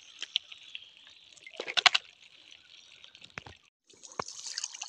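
Water dripping and splashing as small fish are shaken out of a wet mesh net trap into a plastic bucket, with a louder flurry of splashes about two seconds in.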